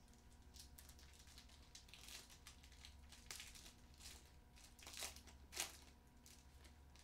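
A trading-card pack wrapper being crinkled and torn open by hand: a string of short, faint rustles, the two loudest about five seconds in.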